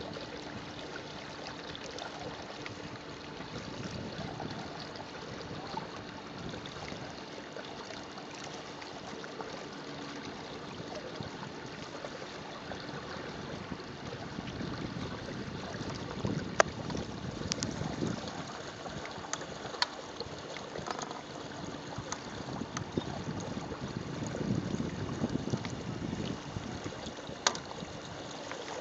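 Water sloshing against a boat hull with wind on the microphone, a faint steady hum underneath. The wash swells twice, and a few sharp clicks or taps stand out.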